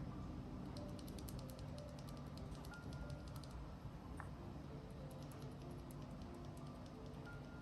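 Quick runs of light plastic clicks from Gateron mechanical keyboard switches being handled and taken apart, over soft background music.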